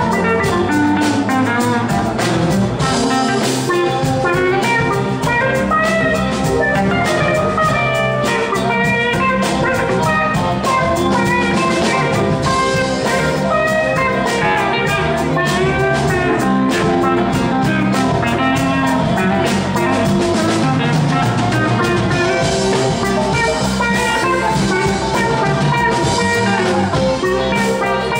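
Live band playing amplified electric guitars over bass and a drum kit, with a quick run of lead-guitar notes over the steady rhythm.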